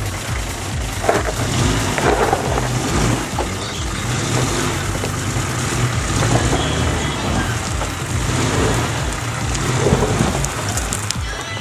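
Ford 4x4 SUV's engine running at low revs: a steady low hum under a broad rumbling noise, with a few short crackles.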